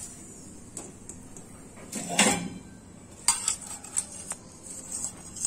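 Metal spatula scraping and clinking against a frying pan and a steel plate as a cooked paratha is lifted out: scattered short clicks and scrapes, the loudest scrape about two seconds in.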